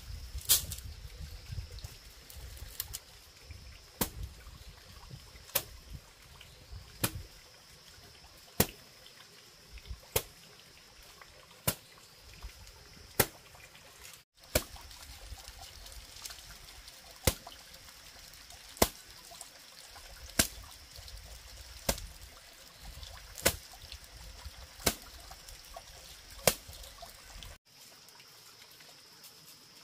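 Sharp single knocks repeated evenly about every one and a half seconds, over a faint steady high-pitched hum.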